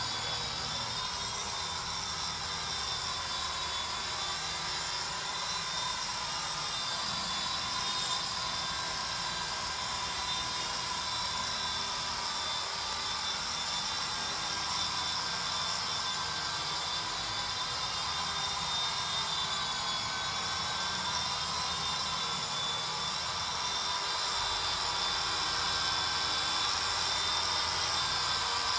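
WLtoys V912 RC helicopter in flight: the electric rotor motors give a high, steady whine that wavers a little in pitch and grows slightly louder near the end.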